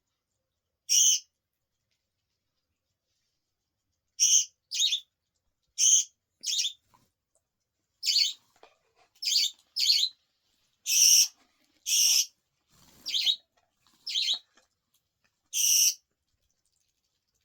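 Budgerigar chirping: about fourteen short, high, separate calls, irregularly spaced and coming more quickly in the middle.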